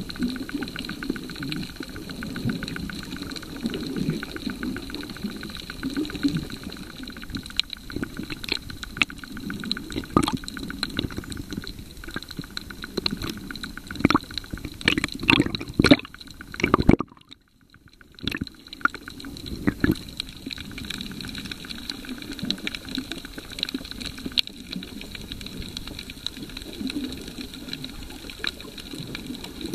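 Underwater water noise picked up by a submerged camera: a continuous wash and low rumble with scattered sharp clicks and knocks, which drops out briefly a little past the middle.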